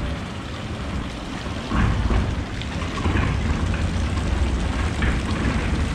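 Fountain water splashing steadily from spouts into a stone basin, with a low rumble of wind buffeting the microphone that grows louder about two seconds in.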